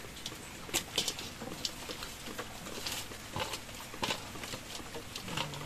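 Live freshwater prawns and an eel handled in a metal basin: scattered light clicks and taps of shells and tails against the metal as a hand sorts through the catch.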